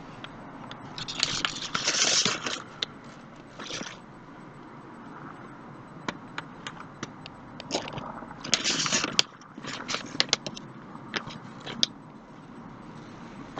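Irregular scraping and crackling handling noises in several bursts, the longest about a second in and again near the middle, with scattered sharp clicks between them.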